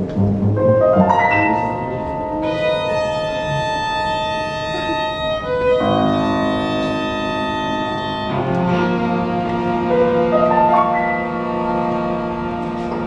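Live chamber quartet of violin, cello, clarinet and piano playing contemporary classical music: long held chords that shift every few seconds.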